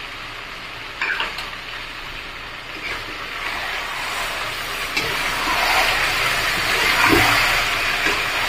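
Chicken pieces frying in oil in a kadai, sizzling while a metal slotted spatula stirs and scrapes them round the pan. The sizzle grows louder from about halfway through, with a few short knocks of the spatula against the pan.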